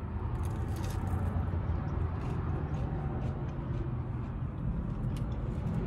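Steady low hum of a parked car running at idle, heard from inside the cabin, with faint chewing and mouth clicks from someone eating fried fish close to the microphone.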